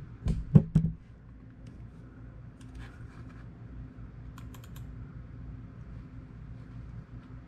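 Computer keyboard typing in short bursts of key clicks, over a steady low electrical hum. A few heavy thumps in the first second.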